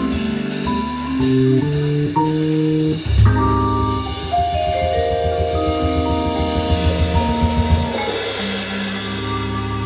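Vibraphone and drum kit playing jazz: a run of quick mallet notes, then long ringing vibraphone chords over the drums, with occasional cymbal strikes.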